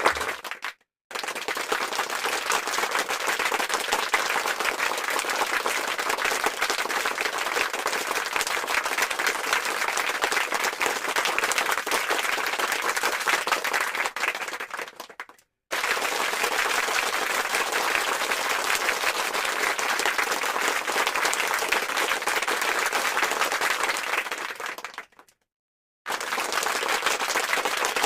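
Applause from a crowd: many hands clapping densely and evenly. It fades out and stops three times, about one second in, near the middle and about three seconds before the end, each time starting again after a second of silence.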